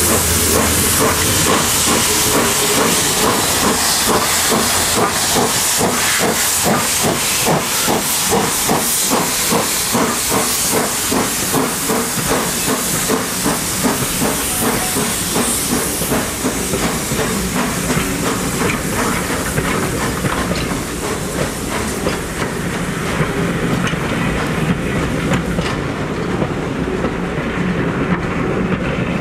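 BR Standard Class 4 4-6-0 steam locomotive working slowly past with its cylinder drain cocks open: a loud steam hiss with regular exhaust beats. From about halfway the beats give way to the coaches rolling past, wheels clicking over the rail joints.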